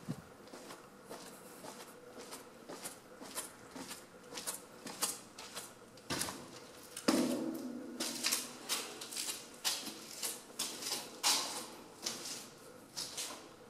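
Footsteps on a gritty concrete floor, about two steps a second, echoing in a concrete bunker corridor, with one louder thump or scrape about seven seconds in.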